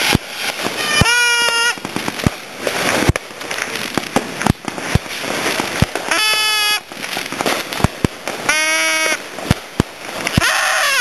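Fireworks going off: a run of irregular sharp bangs and crackles. Three short high-pitched wails, about half a second each, cut through them about a second in, around the middle and shortly after.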